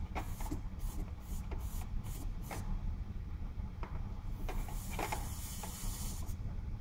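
Hot soldering iron tip being wiped on a wet sponge: a quick run of short hisses, then a longer sizzle about four seconds in.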